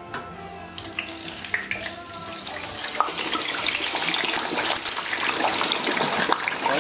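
Hot oil in a Butterball electric turkey fryer sizzling and crackling as a whole raw turkey is lowered into it in its wire basket. The sizzle starts about a second in and grows steadily louder as the bird goes deeper into the oil.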